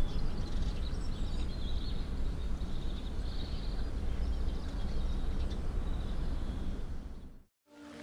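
A steady low rumble with small birds chirping faintly through the first half. The sound cuts off suddenly near the end.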